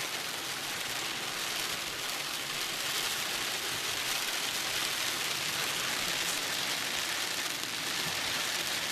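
Heavy rain pouring down: a steady, dense hiss of a downpour.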